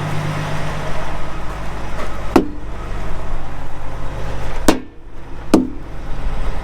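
Truck engine idling steadily, with three sharp ringing knocks of a hammer striking the wheel rims, about two, four and a half and five and a half seconds in, to knock off caked dirt.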